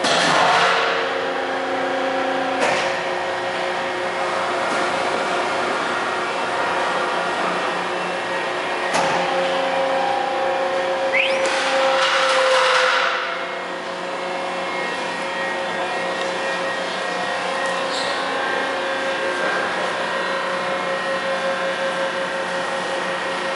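Thermoforming machine line running with a steady hum of several tones. Loud hissing comes in at the start and again about halfway through, with a few sharp clicks between.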